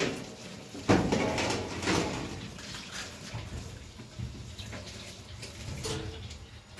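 Tap water running into a stainless-steel kitchen sink while dishes are washed, with a sharp knock about a second in.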